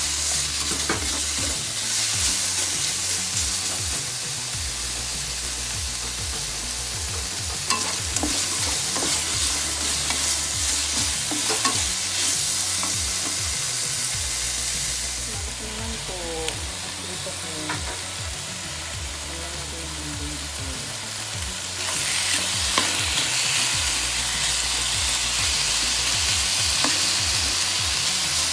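Pork and chicken pieces sizzling as they fry in a non-stick frying pan, being stirred and turned with a spatula and chopsticks that click and scrape against the pan now and then. The sizzle gets louder about three-quarters of the way through.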